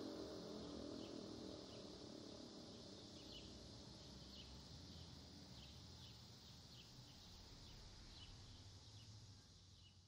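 The Sentry 16V1T-B warning siren's last low wind-down tone fades out within the first half second. Then only faint short bird chirps, about one or two a second, over a low steady rumble.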